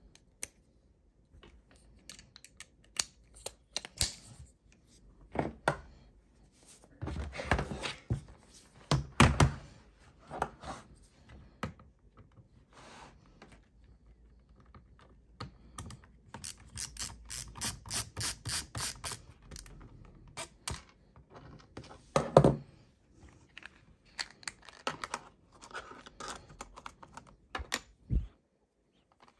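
LTT ratcheting screwdriver clicking as it works the screws of a laptop's bottom panel, with a fast, even run of ratchet clicks a little past the middle. Scattered knocks and clicks of tools and small plastic parts being handled on a wooden table, with one sharp, loudest knock a few seconds after the ratchet run.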